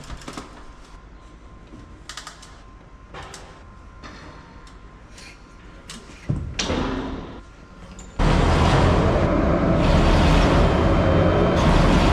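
Scattered light metal clinks and knocks of a potato harvester's belted chain being fed around a sprocket by hand. About eight seconds in, a loud, steady machine-like noise cuts in abruptly.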